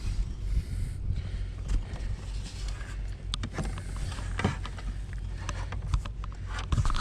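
Steady low rumble with scattered light clicks and knocks, thickest in the second half, from a bass being handled and measured aboard a small fishing boat.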